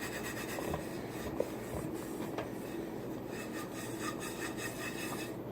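Faint rubbing and handling noise with a few small clicks scattered through it.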